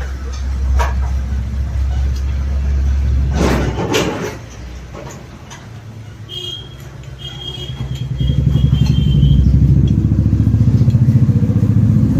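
A motor vehicle engine running nearby with a low, loud drone that eases off around the middle and then builds up again from about eight seconds with a fast, even pulsing. There are a couple of sharp clicks of metal parts about three and a half and four seconds in.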